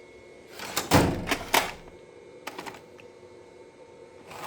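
Sharp metallic clicks and clanks of tools and a toolbox drawer being handled, a cluster of them about a second in and one more shortly after the middle.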